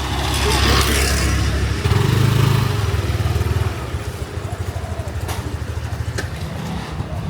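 A motorbike engine running close by, louder for the first few seconds with a rise in pitch and level around two seconds in, then dropping to a lower, steadier running sound.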